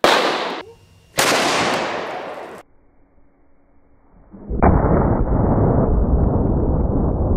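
A .577 Tyrannosaur cartridge going off outside a gun, loose in a bench fixture: a sharp bang at the start, then a second loud blast about a second later that fades away over about a second and a half. From about four and a half seconds in comes a long, deep, muffled rumble of the blast slowed down.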